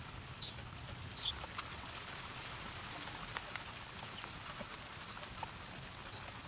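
Faint outdoor ambience: a low steady hiss with scattered short, high-pitched chirps, a few each second, and a few light clicks.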